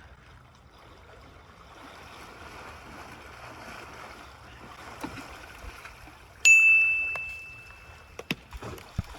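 Creek water running steadily. About six and a half seconds in, a loud ringing ding: one high, steady tone that fades over nearly two seconds, followed by a couple of sharp clicks near the end.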